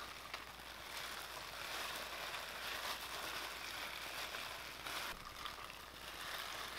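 Faint steady hiss with no distinct event in it, a little brighter about five seconds in.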